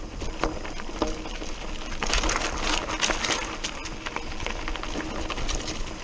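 Mountain bike tyres crunching and rattling over loose rocks and dry leaves on a dirt trail, with the bike clattering over the bumps; the rattling grows denser and louder about two seconds in for a second or so.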